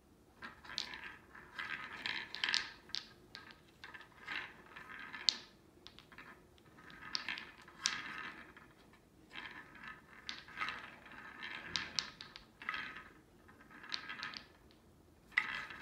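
Wooden balls rolling and clacking around the circular tracks of a three-tier wooden cat tower toy as a kitten bats at them, in repeated short bursts with sharp clicks.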